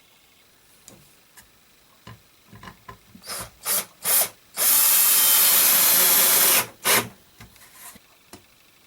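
Electric drill working wood: a few handling clicks, three short trigger bursts, a steady run of about two seconds, then one more short burst.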